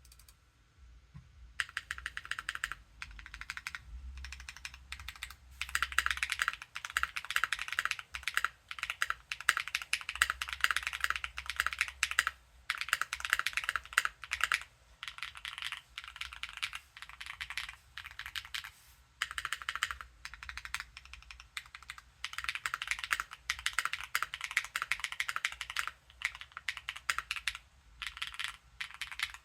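Typing on an expensive (over $200) computer keyboard: fast runs of crisp keystrokes that start about a second and a half in and come in bursts, broken by short pauses.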